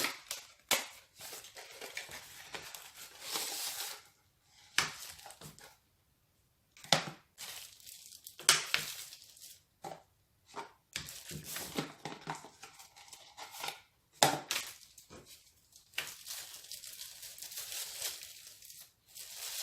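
Product packaging being torn and crumpled open by hand: crinkling, rustling and sharp cracks in spells, with short pauses between them.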